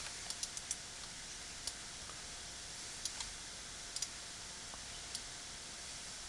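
Scattered computer mouse clicks, about ten in all, some in quick pairs, with pauses between, over a faint steady hiss.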